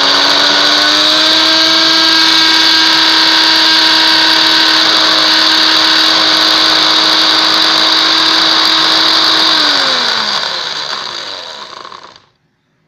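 Electric blender's motor running at full speed, grinding dry granulated sugar into powder, with a steady whine over a hiss. About ten seconds in it is switched off, and the whine falls in pitch as the blade winds down and stops.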